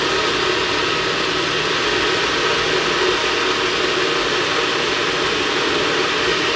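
Compact personal blender running steadily at full speed, its cup held pressed down on the motor base, blending a smoothie of banana, berries and milk.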